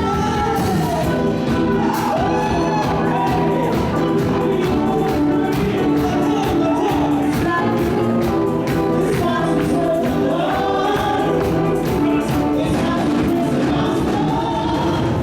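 Gospel band music in a groove style: voices singing a hymn over a full band with drums keeping a steady beat.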